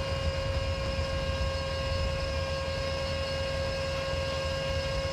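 A heavy vehicle's engine running steadily: a low rumble with a constant high-pitched whine over it.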